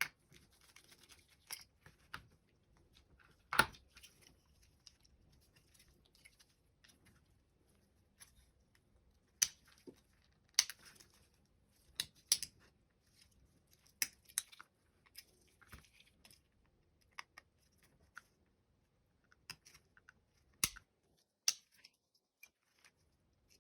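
Irregular sharp clicks and short scrapes of the small plastic parts of a Logitech M150 mouse being handled and pried apart, as its internal metal weight is taken out.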